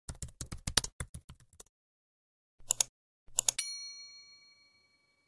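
Keyboard typing sound effect, a quick run of keystrokes lasting about a second and a half. Then come two short pairs of clicks, and a bright notification ding that rings out for about a second.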